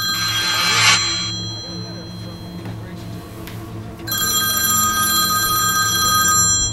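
Mobile phone ringtone signalling an incoming call: one ring ends about a second in and a second ring of about two and a half seconds starts about four seconds in. A brief rush of noise swells over the first ring.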